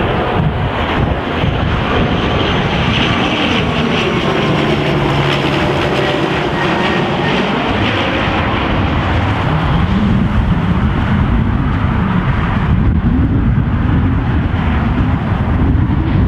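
De Havilland Canada Dash 8 twin turboprop on landing approach: its propeller drone slides down in pitch as it passes, then rises again near the end as it comes in to touch down. Wind rumbles on the microphone underneath.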